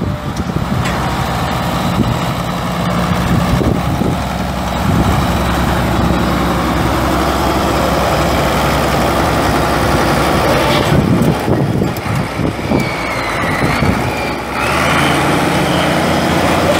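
The Case 1070 tractor's 7.4-litre six-cylinder diesel engine running at a steady speed. There are a few knocks around the middle, and the engine's tone changes shortly before the end.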